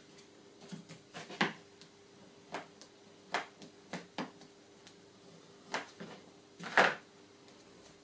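Pieces of card and paper being handled and laid down on a cutting mat: a series of short paper rustles and light taps, the loudest near the end.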